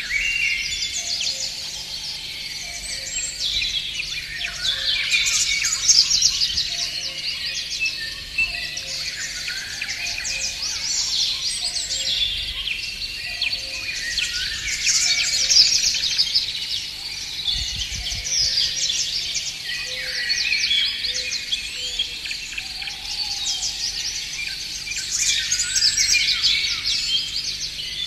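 A chorus of songbirds: many overlapping high chirps, trills and song phrases, swelling louder every few seconds, with a fainter, lower call repeating at an even pace underneath.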